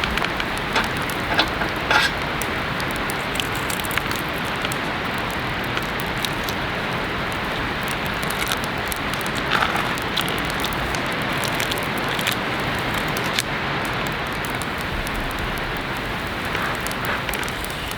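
Heavy rain falling steadily, with scattered sharper drop hits standing out from the even patter.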